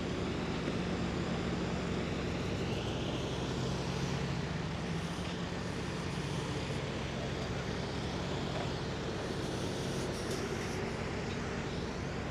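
Light tower's generator engine running steadily at constant speed, an even drone.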